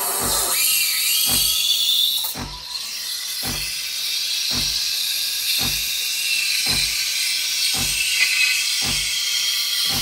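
Sage/Breville Bambino Plus steam wand hissing steadily into a stainless steel milk jug, steaming milk. Under the hiss the machine gives a low pulse about once a second.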